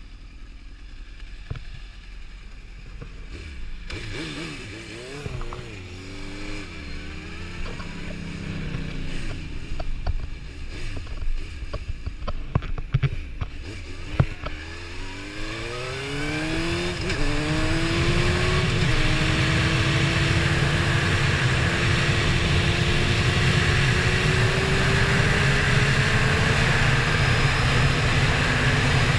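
Sport motorcycle engine running low and uneven at first, with a few sharp clicks about halfway. It then pulls away hard, its pitch rising in several steps as it shifts up through the gears, and settles into a steady cruise with wind noise building.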